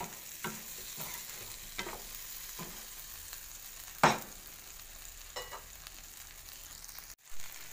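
Shrimp sizzling as they stir-fry with garlic and chili in a frying pan, with a few strokes of a slotted spatula against the pan as they are tossed. The loudest stroke comes about four seconds in.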